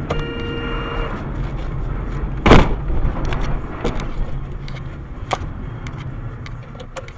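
Car driving, recorded by a dashcam inside the cabin: steady engine and road rumble, a steady tone for about a second at the start, and one sharp thump about two and a half seconds in, followed by scattered clicks and knocks as the noise slowly fades.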